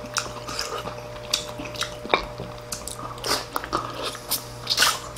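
Close-up eating sounds: two people biting and chewing braised pork back ribs and kimchi, with irregular wet smacks and short clicks.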